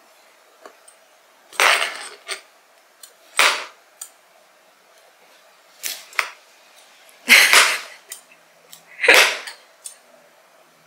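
Dry onion skin crackling and rasping as a hand peeler scrapes and pulls it off the bulb, in about five short scraping strokes with small ticks between them.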